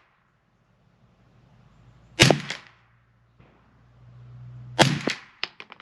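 Ruger 10/22 semi-automatic rifle firing .22 LR rounds: two sharp cracks about two and a half seconds apart, each with a short echo. A few quick light clicks follow the second shot near the end.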